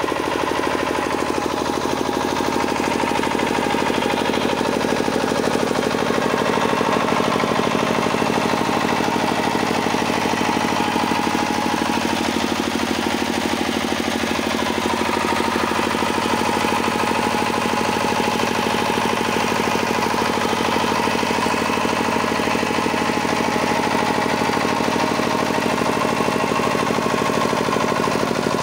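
Kirloskar diesel generator engine running steadily at constant speed, with a fast, even beat.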